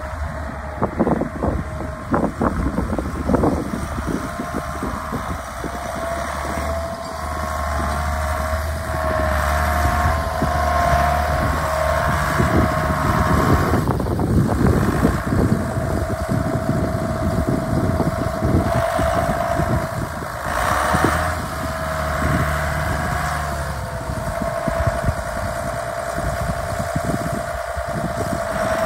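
John Deere 7320 tractor's six-cylinder diesel engine running as the tractor drives and turns, with a steady whine over the engine that shifts in pitch a few times.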